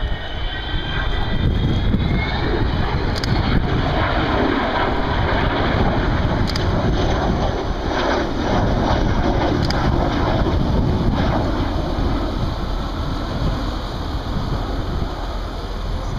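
Avro Vulcan bomber's four Rolls-Royce Olympus turbojets roaring as it flies past. The jet noise swells about two seconds in, holds, and eases a little near the end.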